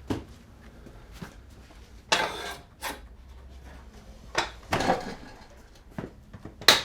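A few separate metallic clanks and scrapes from handling tools and moving the motorcycle, with a sharp clack near the end.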